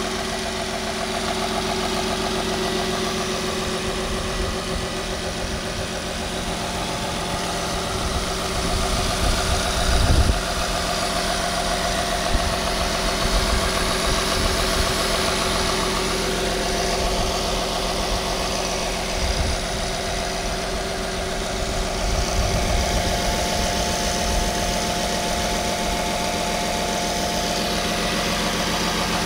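Nissan Y51 Cima Hybrid's 3.5-litre V6 idling steadily, heard with the hood open, with a few brief low rumbles about a third of the way in.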